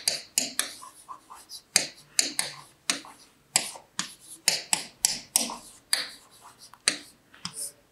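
Chalk writing on a chalkboard: a string of sharp, irregular taps and short scratches as each letter is stroked out.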